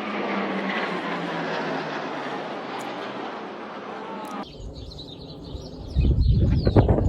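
Military aircraft flying over: a steady roar with engine tones slowly falling in pitch as they pass. About four and a half seconds in, the sound cuts off abruptly, and near the end a louder low rumble with knocks sets in.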